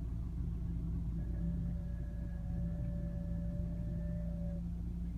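Audi A5's engine idling with a steady low hum, and from about a second in a steady tonal whine from the steering as the wheel is turned, which stops shortly before the end.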